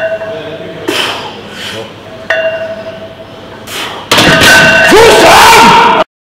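Gym sounds during a heavy bench press: voices and several sharp metallic clinks of the barbell and plates. Then a much louder, harsh burst with a voice sliding up and down in pitch, which cuts off abruptly.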